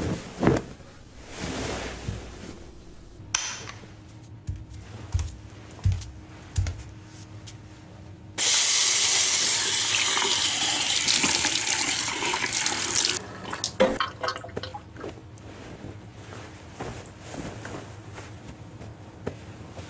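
Bathroom sink tap turned on full, water running into the basin for about five seconds before being shut off abruptly. Quieter rustling and soft knocks come before and after it.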